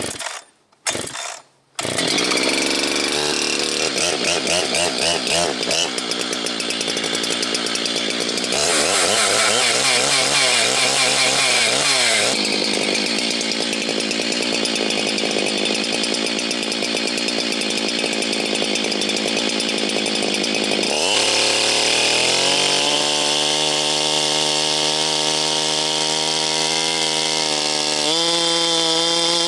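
Husqvarna 390XP two-stroke chainsaw starting after two brief sputters, then running loud at high revs with the engine speed rising and falling. About two-thirds of the way through the revs drop sharply and slowly climb back, as under cutting load.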